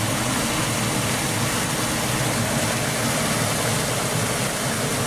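Water pouring down into a storm sewer manhole shaft, a steady rushing and splashing of runoff from rain and melting snow.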